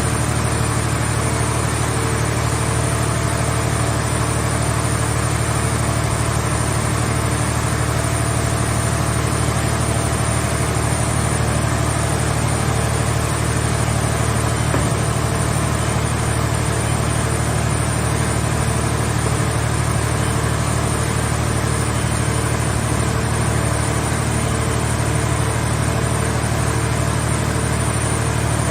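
Mobile car-shell baler's engine and hydraulic power unit running steadily: a constant low drone with a faint, steady high whine above it.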